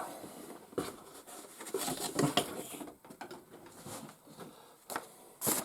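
Light handling sounds of an unboxing: scattered taps, clicks and rustles as a booklet and cardboard packaging are moved about, with a short burst of rustling near the end.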